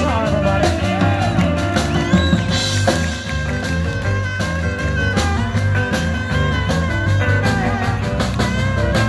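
Live blues band playing over a PA: an electric guitar takes a solo with bent notes over a stepping bass line, drums and keyboards, with the horn section joining in.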